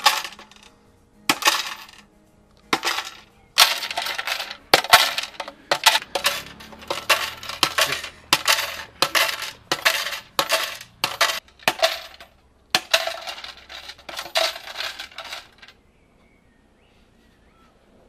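Coins clinking and rattling into a plastic collection box, in repeated irregular bursts of sharp clinks that stop about two seconds before the end.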